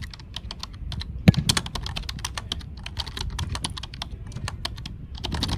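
Rapid, irregular keyboard-typing clicks, several crisp key strikes a second, with one heavier knock about a second in.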